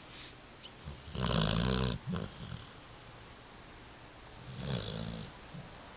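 Sleeping Labrador puppy snoring: a loud rasping snore about a second in, a short one right after, and a softer snore near the end.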